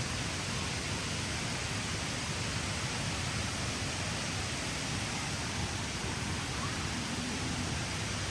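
Steady rush of falling water from a waterfall cascade, an even hiss with no breaks.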